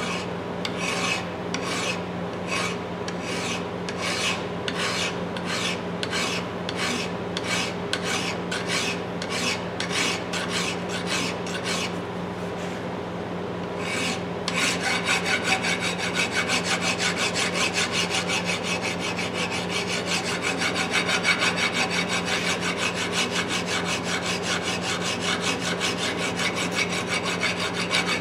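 Hand file rasping back and forth across the steel head of a 22 oz Bostitch hammer, cleaning up dents from misuse. The strokes are even, about two a second. After a short pause about halfway, they come faster and louder.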